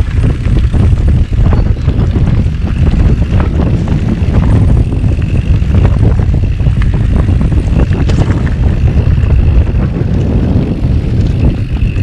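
Heavy wind buffeting the camera microphone as a steady low rumble, with scattered knocks and rattles.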